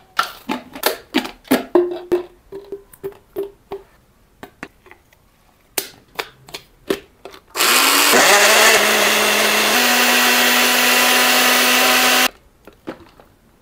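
Hamilton Beach personal blender motor spinning up and blending a smoothie for about four and a half seconds: a brief rising whine as it starts, then a loud, steady whirr whose pitch steps up once, before it cuts off suddenly. Before it, a run of short knocks and clatters.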